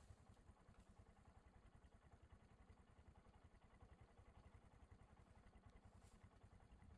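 Near silence with a faint low rumble.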